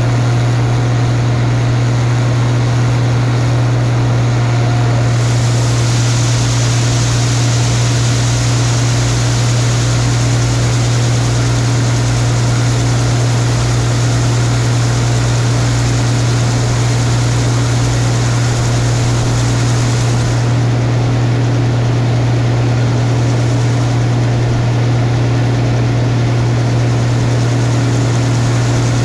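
Combine harvester running steadily while unloading corn. A strong, even low hum runs throughout, and a high hiss comes in about five seconds in and fades about twenty seconds in.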